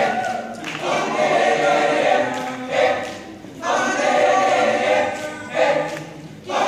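Men's choir singing together in short, punchy phrases separated by brief breaks.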